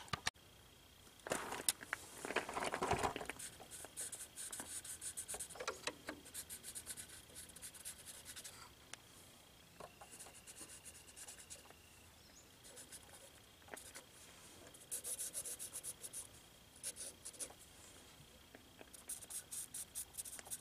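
Marker pen scratching on the wiring at a generator's starter solenoid, in several short bursts of quick strokes as the wires are marked before removal.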